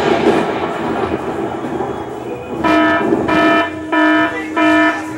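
Loud played-back performance track: a noisy wash, then a horn-like electronic blast repeating about every 0.6 s, four times in the last half.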